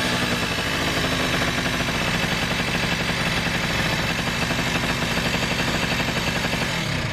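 The freshly rebuilt 50 cc two-stroke scooter engine of a MotorZip (Zip2000 A1) is running at a steady, too-high idle, because the idle stop screw is turned in too far. Near the very end it starts to die away as it is shut off.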